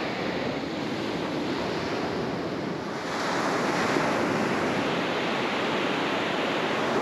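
Pacific Ocean surf breaking and washing up a sandy beach, a steady rushing wash with wind on the microphone. It grows a little louder about three seconds in.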